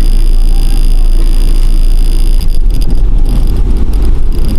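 Vehicle engine running with a loud, low rumble that turns rougher and more uneven from about halfway in.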